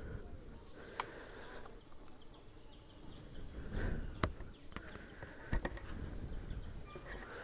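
Quiet outdoor background with faint short calls, a few sharp clicks, and low swells about four and six seconds in.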